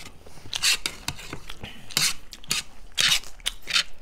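Close-up eating sounds of buff chow mein: chewing and a fork scraping the plate, with four short loud moments about 0.7, 2, 3 and 3.8 seconds in.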